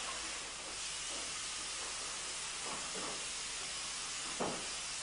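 A steady hiss, with a few faint knocks, the clearest near the end.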